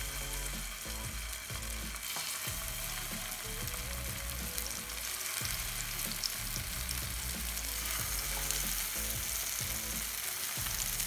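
Cottage cheese pancakes frying in coconut oil in a nonstick pan: a steady sizzle as the raw, floured patties are laid into the hot oil one after another.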